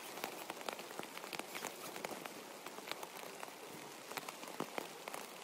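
Nylon shell of a down sleeping bag and its stuff sack rustling and crinkling as they are handled and packed, a dense run of irregular crackles and ticks.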